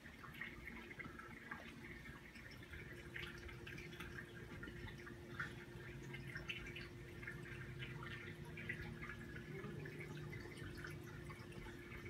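Reef aquarium water trickling and dripping, with many small irregular splashes over a steady low hum.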